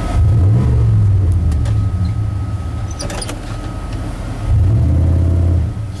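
Plow truck's engine revving up twice, each push lasting a second or two, as the truck tries to drive out of deep snow in which it is stuck, heard from inside the cab.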